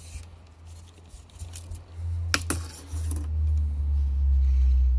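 Handling noise from a steel tape measure being brought out across plywood: two sharp clicks a little after two seconds in, with a few fainter ticks. Under them a low rumble on the microphone grows louder toward the end.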